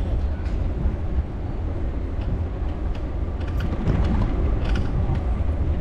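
Wind buffeting the microphone of a camera carried on a moving bicycle, a steady low rumble mixed with road noise, with a few light clicks and rattles in the second half.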